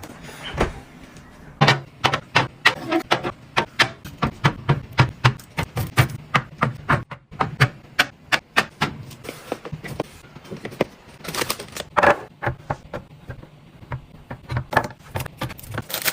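Quick runs of clicks, taps and clinks from food and drink containers being handled and set down while restocking a fridge. The sounds come several a second for the first half, then thin out, with a louder clatter about twelve seconds in.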